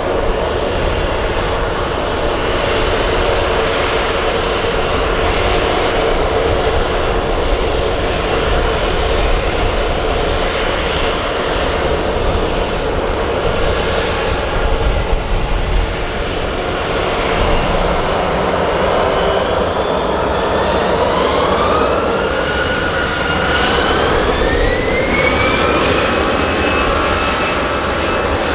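Airbus A320 jet engines running steadily, then spooling up for takeoff about two-thirds of the way in: a whine that climbs in pitch in steps over several seconds. A low, unsteady rumble of wind on the microphone runs underneath.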